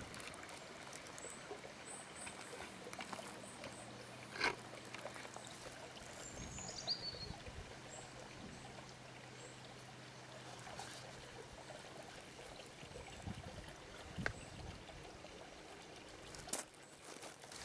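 Quiet garden ambience: a steady even hiss with a few faint high chirps, a faint low hum through the middle and a few short sharp clicks.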